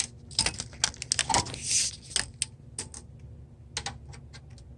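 Rapid light clicks and taps of a measuring tool knocking against the thin sheet-metal drawer of a tool chest as it is measured. The clicks come thick for about three seconds, then a short cluster follows near the end.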